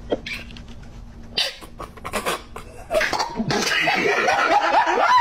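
A man's stifled laughter: short snorts and puffs held back behind his hand, then breaking into fuller, louder laughing about three and a half seconds in.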